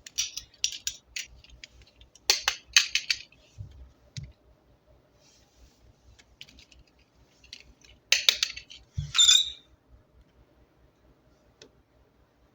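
Toys being handled: clusters of sharp plastic-sounding clicks and clacks, three groups spaced apart, with a short crinkly rustle a little after the last group.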